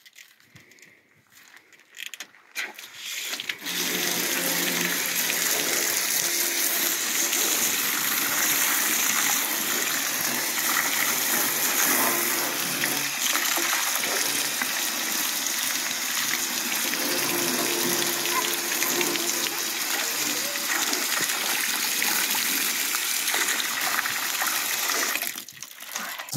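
Water from a garden hose spray nozzle hissing and splashing onto the underside of an upturned enamelled bathtub as it is rinsed off. The spray starts a few seconds in and stops shortly before the end.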